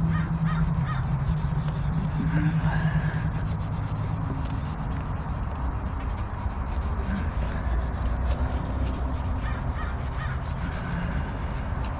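Wet hand-sanding of a plastic headlight lens with 3000-grit sandpaper on a foam disc holder: a steady rubbing. Crows caw several times in the background.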